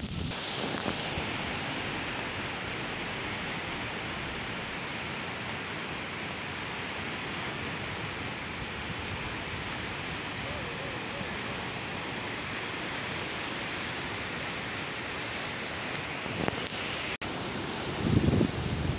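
Ocean surf washing onto a rocky beach: a steady, even rushing hiss. It cuts off abruptly near the end and gives way to irregular low buffeting of wind on the microphone.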